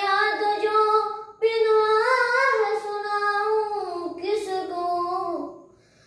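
A boy singing an Urdu nazm unaccompanied, drawing out long held notes in two phrases with a short breath about a second and a half in; his voice fades out near the end.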